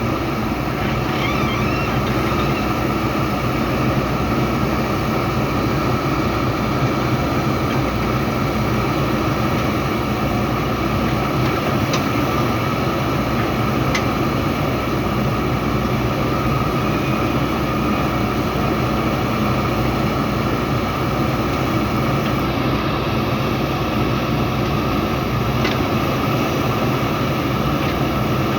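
JCB 3DX backhoe loader's diesel engine running steadily under load while it works, with a few light clicks now and then.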